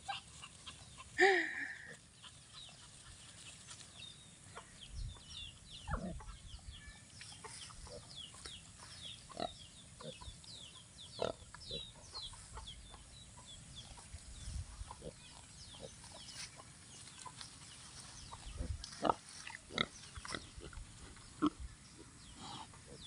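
Native pigs, a sow and her piglets, grunting in short scattered calls as they graze in the grass, with one louder call about a second in.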